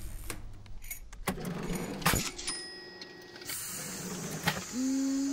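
Electronic music intro made of clicks, rattles and mechanical noises, with a held tone coming in near the end.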